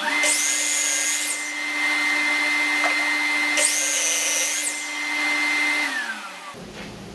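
Miter saw motor starting and running with a steady whine while the blade is brought down through the end of a hardwood block, with a brief high-pitched cutting noise near the start and again about halfway through. Near the end the trigger is released and the motor winds down, its whine falling in pitch.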